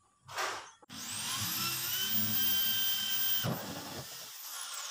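Corded electric drill spinning up about a second in and drilling steadily into a black plastic drum, making the hole for the tank's water outlet. The trigger is released about three and a half seconds in, and the motor's whine falls as it winds down.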